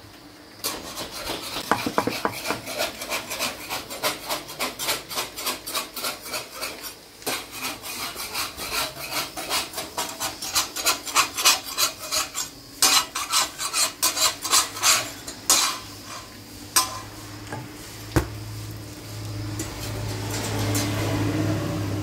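Rapid, regular scraping strokes, about three a second, that stop about 16 seconds in; a few separate knocks follow, and a steady low hum comes in near the end.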